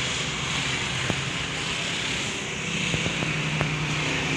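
Steady drone of a motor vehicle engine running nearby, its low hum stepping up slightly in pitch a little past halfway, with a few light clicks.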